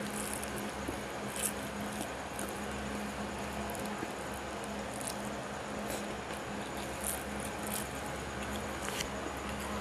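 Eating by hand: fingers mixing and squishing rice with boiled vegetables on a plate, and chewing with scattered short wet clicks, over a steady hum.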